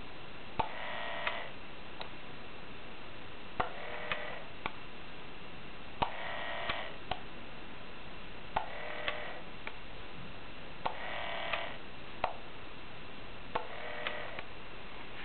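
Hand-made electric switch machine throwing the points of an HO-scale model railway turnout back and forth. Each throw is a toggle-switch click, then about half a second of buzzing from the small motor, then a smaller click. This repeats six times, about every two and a half seconds.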